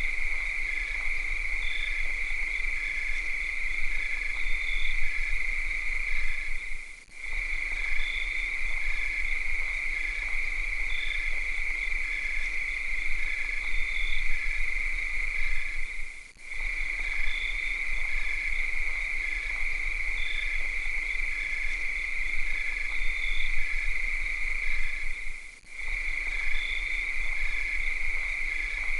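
Cicadas buzzing in a steady high drone, with a fainter chirp pulsing a couple of times a second alongside. The chorus drops out briefly three times, about nine seconds apart.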